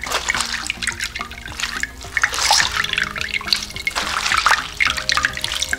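Salt brine drained from grated cucumbers and onions running from a strainer in a thin stream and splashing into a glass bowl of liquid, with an uneven pattering.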